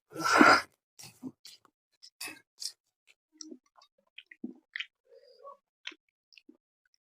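Close-up eating sounds: a loud noisy burst right at the start, then scattered chewing and short mouth clicks and smacks.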